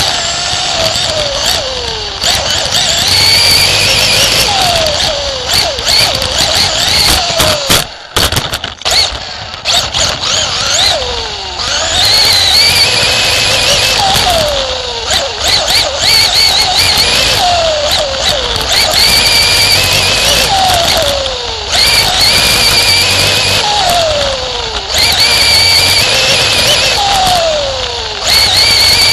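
Engine of a winged dirt-track race car running hard lap after lap. About every two and a half seconds the pitch climbs on the throttle and then drops as it lifts for a turn. There is a brief drop in level about eight seconds in.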